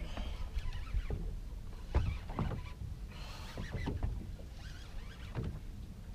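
Small waves slapping irregularly against a small boat's hull, over a low steady rumble.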